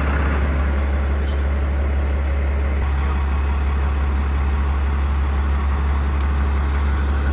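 An engine idling steadily with a deep, even hum.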